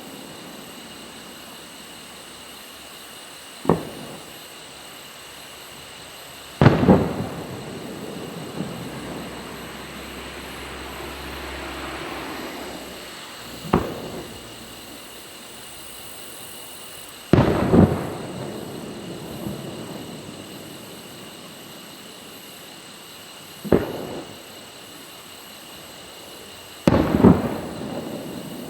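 Aerial fireworks going off in a repeating pattern, three times: a single sharp bang, then about three seconds later a louder burst of several bangs with a long echoing tail that slowly fades.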